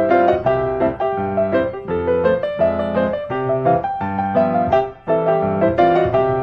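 Piano music, a quick run of notes with bass below, with a brief drop about five seconds in.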